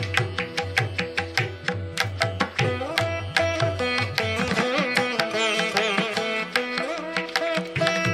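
Instrumental background music in an Indian classical style: pitched string notes that bend and waver in the middle, over a steady beat of drum strokes.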